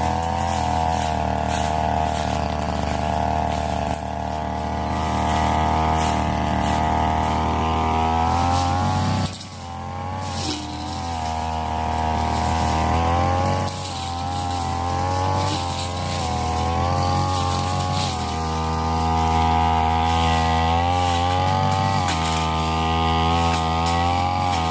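Brush cutter engine running at high speed while cutting brush, its speed sagging and recovering several times, with one sharp drop about nine seconds in. Scattered clicks can be heard over the engine.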